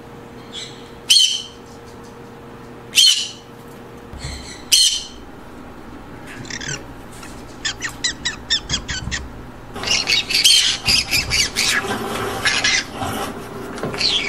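Green-cheeked conures squawking: three sharp single screeches about two seconds apart, then a quick run of short chattering notes, about eight a second, and near the end a busy stretch of overlapping squawks and chatter.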